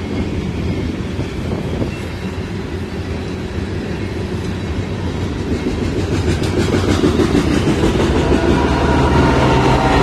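A loaded BNSF coal train rolling past: a steady rumble of the cars, with the wheels clacking over rail joints. It grows louder in the last few seconds as the diesel locomotives come alongside and their engine drone joins in.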